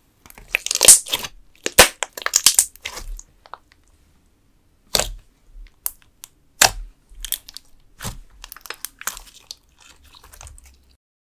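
Clear green glitter slime with clear cubes mixed in, squeezed, poked and stretched by hand, giving sticky crackling and popping. It is densest over the first three seconds, then comes as separate sharp pops with smaller crackles between.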